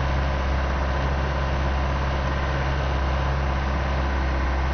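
Land Rover engine running steadily with a low, even hum while the vehicle moves slowly off-road, heard from inside the cab.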